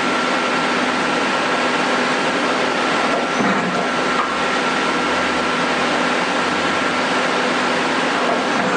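Amera Seiki T415/1500 CNC lathe running, a steady machine hiss with a constant high whine.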